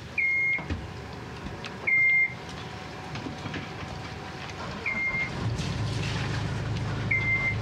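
Catamaran helm engine panel beeping: four short, high, level beeps a second or few apart. About two-thirds of the way through, an inboard diesel engine comes on with a low, steady rumble.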